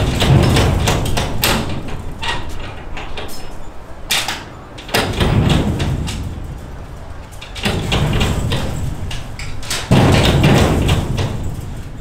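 Hand banging on a large sheet-metal gate, the gate rattling loudly in its frame in several bouts of rapid knocks with short pauses between.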